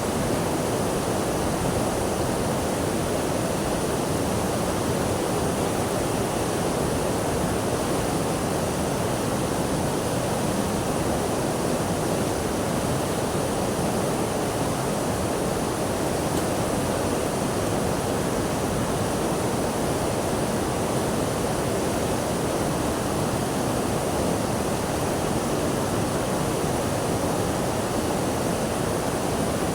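Water rushing steadily, an even noise that holds the same level throughout.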